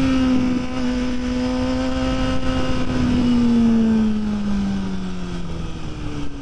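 Motorcycle engine running under way over wind and road noise; its note holds fairly steady, then falls in pitch from about three seconds in as the bike slows.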